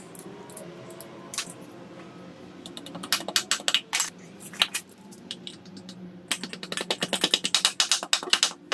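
Ratchet wrench clicking as bolts on a manual gearbox casing are turned: a few short runs of clicks, then a longer, faster run near the end.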